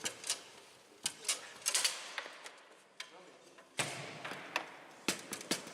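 Foosball being played on a Bonzini table: sharp, irregular clacks and knocks as the ball is struck by the players' figures and bangs against the table walls.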